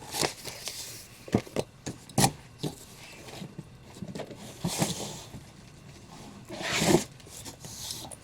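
Comic books being handled: paper rustling and sliding, with a few sharp taps early on and two louder swishes later as comics are moved.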